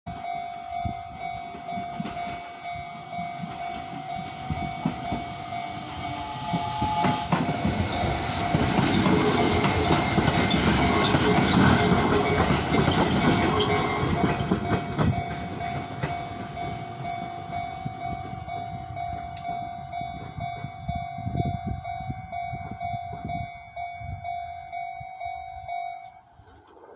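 Japanese railway level-crossing alarm ringing in a steady, repeating tone while a Nishitetsu electric train passes over the crossing, its wheels and running noise loudest about 8 to 15 seconds in. The alarm stops suddenly near the end.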